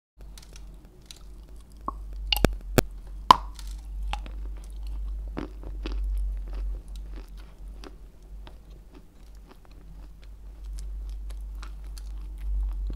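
Close-miked crunching and chewing of a lump of Turkestan white edible chalk, with a few sharp loud cracks about two to three seconds in and smaller crackles after. A steady low hum from microphone interference runs underneath.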